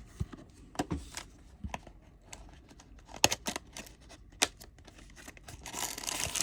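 Small cardboard trading card boxes and sealed card packs being handled: a series of sharp clicks and taps, the loudest a little past three seconds in, then a brief rustle of packaging near the end.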